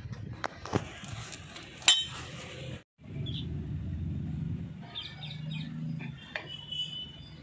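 Light metallic clinks of tools and drum-brake parts being handled: a few sharp clicks, the loudest one ringing about two seconds in and another near the end, over a low background rumble. The sound drops out for an instant a little before the middle.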